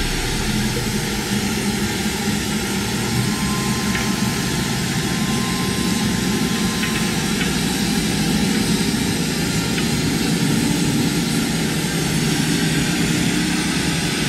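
Steady roar of a gas torch's flame burning, with a few faint ticks.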